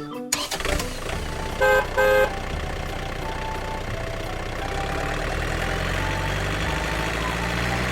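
A vehicle horn toots twice in quick succession, then a vehicle engine runs steadily, growing slightly louder.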